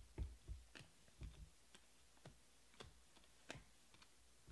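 Faint, irregular clicks and soft snaps of glossy Panini Prizm trading cards being flipped through and sorted by hand, two to three a second, loudest in the first second.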